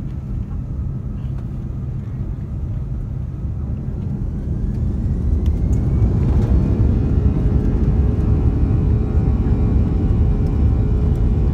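Airbus A340-300's CFM56-5C turbofan engines heard from inside the cabin over the wing: a low rumble that grows louder from about four seconds in, with a rising whine as the engines spool up to takeoff thrust, settling into a steady louder drone.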